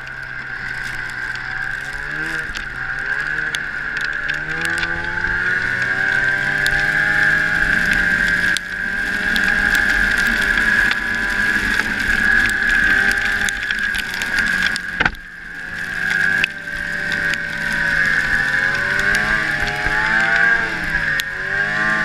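Arctic Cat ZR500 snowmobile under way: its two-stroke engine running, its pitch climbing as it accelerates, then holding. About 15 seconds in the throttle comes off briefly, then the pitch rises and wavers again. Through it all there is a steady high whine.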